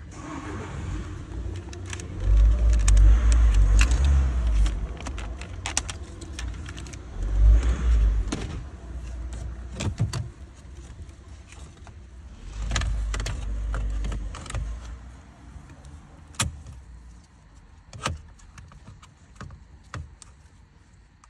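Hands working on a car's dismantled dashboard: sharp plastic clicks and rattles of trim, screen and connectors being handled, with three spells of low rumbling bumps in the first two thirds and single sharp knocks about ten, sixteen and eighteen seconds in.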